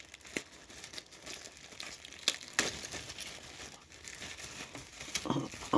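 Packaging crinkling and rustling as power cords are unwrapped and handled, with a few sharp clicks.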